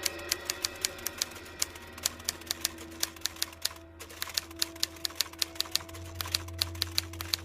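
Rapid, fairly even clicking, several sharp clicks a second like typewriter keys, over a steady low hum and held tones; it cuts off abruptly near the end.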